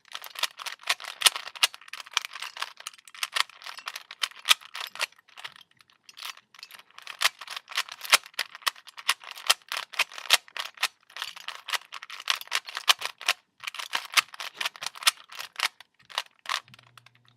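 Plastic Rubik's Cube being turned quickly by hand: a dense, irregular run of clicks and rattles of the layers snapping round, with a few brief pauses.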